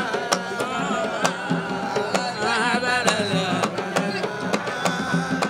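Hadhrami zerbadi music: hand drums beating a steady rhythm under a wavering melody line, between sung verses.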